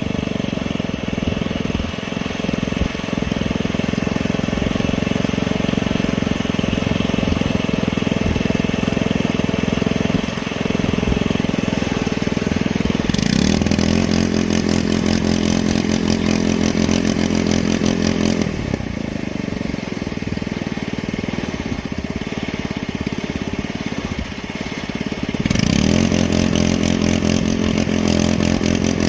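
A motor or engine-like machine running steadily. Its tone changes abruptly about 13, 18 and 25 seconds in.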